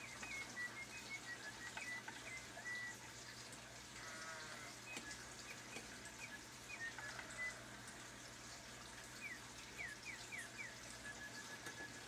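Late-1800s French Helvetic mechanical singing bird cage, its whistle mechanism piping imitation birdsong. The song is made of short chirps, a warbling trill about a third of the way in, a quick run of falling slides later on, and even repeated notes on one pitch near the end.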